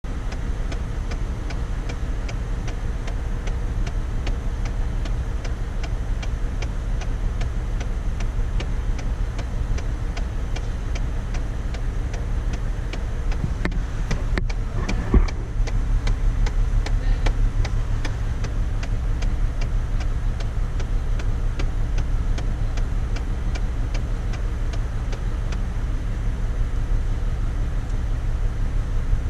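Chevrolet Trailblazer 4.2L Vortec inline-six engine idling steadily, with a regular ticking a few times a second, as it runs with the misfire being diagnosed. About halfway through there is one sharp click.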